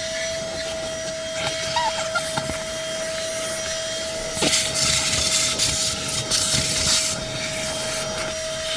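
Cordless handheld vacuum running with a steady motor whine while its nozzle rubs over carpet, picking up grass and dust; from about halfway through there are louder bursts of hissing and crackling as debris is sucked in.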